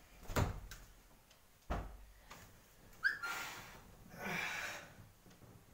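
Two soft thumps as a man and a pillow drop onto a cushioned sofa. About three seconds in comes a short squeak, then two breathy exhales as he settles back.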